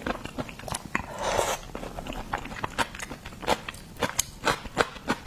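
Close-miked eating of raw seafood: wet chewing and biting with many sharp mouth clicks, and a brief slurp about a second in.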